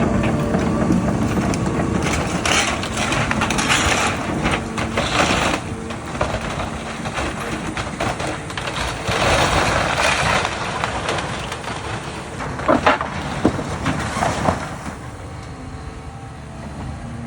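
Cat excavator's diesel engine running while it tears into an old timber barn, with several stretches of crashing and splintering wood and, later on, a few sharp cracks of breaking boards.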